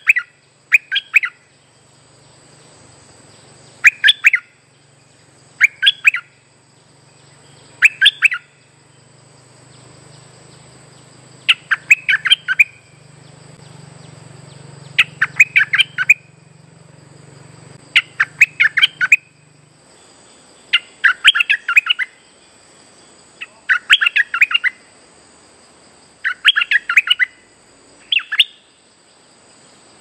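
Stripe-throated bulbul singing short, rapid phrases of quick notes about every two seconds, the phrases growing longer and fuller from about ten seconds in.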